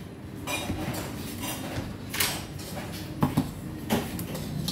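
Metal chopsticks and a spoon clinking against a stainless-steel noodle bowl: a handful of short, sharp clinks, the loudest about three seconds in.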